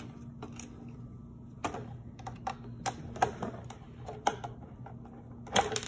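Irregular light clicks and taps of a Phillips screwdriver working the cover screws out of a Technivorm Moccamaster coffee maker's housing, about half a dozen over a few seconds, the sharpest near the end.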